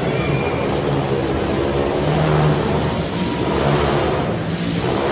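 Motorcycle engines revving steadily as the bikes ride around inside a steel-mesh globe of death, the revs swelling and easing every second or so.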